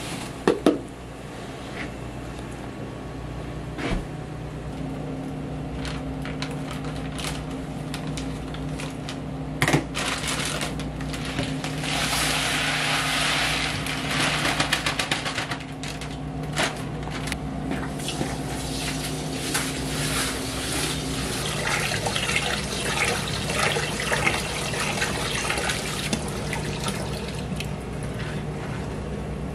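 Rice poured from a paper sack into a plastic bucket with a rushing hiss, then tap water running into the bucket while the rice is stirred by hand. A couple of sharp knocks of kitchenware come near the start and partway through, over a steady hum.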